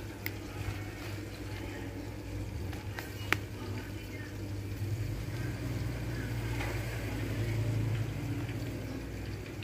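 Hand tossing and pressing chicken pieces in a plastic bowl of dry flour coating, with soft scrunching of the flour over a steady low hum. There is a single sharp click a little over three seconds in.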